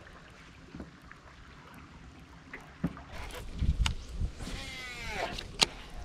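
Scattered clicks and knocks from handling a baitcasting rod and reel in a small aluminum boat. The handling gets busier past the halfway point, with low bumps. Near five seconds a short squeak or call falls in pitch.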